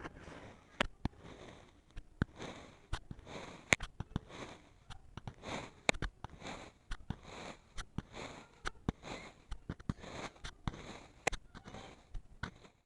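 Kinetic sand being cut and crushed: a run of soft crunching strokes, about two a second, with sharp clicks among them.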